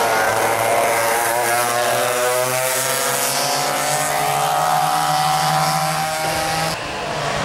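Several small go-kart engines racing, a steady buzz whose pitch climbs slowly over several seconds as they accelerate. The sound changes abruptly near the end.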